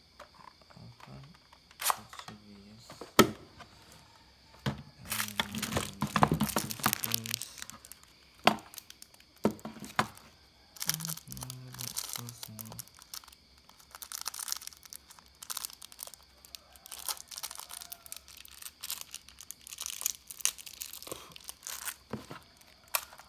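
Hands handling a plastic airsoft rifle and its parts on a desk: sharp plastic clicks and knocks, the loudest about three seconds in, with stretches of plastic crinkling.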